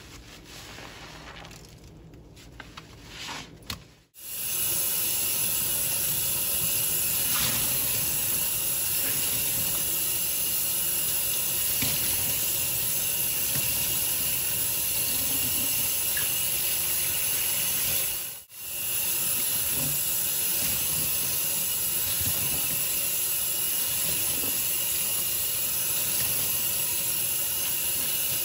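For about four seconds, soft wet squishing as a foam-soaked sponge is squeezed. Then a kitchen faucet runs in a steady stream onto a sponge held under it for rinsing, breaking off once for an instant about two-thirds of the way through.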